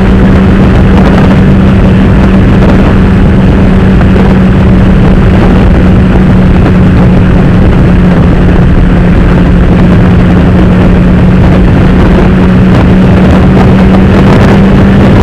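Honda CB1000R's inline-four engine with Akrapovic exhaust running at steady, unchanging revs at highway speed, buried in loud rushing wind on the microphone.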